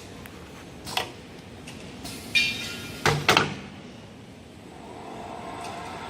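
CNC wood turning lathe with automatic loader cycling: a series of mechanical clunks and short metallic clinks as the loader handles a wood blank, the loudest pair about three seconds in. A steady machine hum builds over the last second or two.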